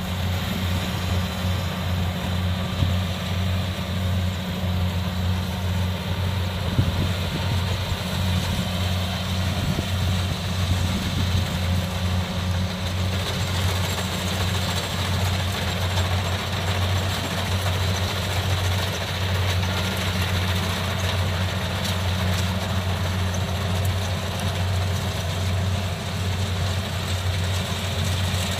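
Kubota DC68G combine harvester's diesel engine and machinery running steadily, with a deep, even hum.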